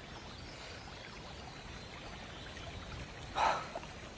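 Faint, steady running stream water, with one brief soft sound about three and a half seconds in.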